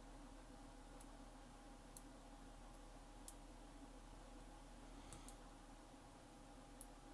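Faint, sparse clicks of a lock pick working the spool pins of a Brinks four-pin padlock, about six clicks spread unevenly over several seconds, over a low steady hum.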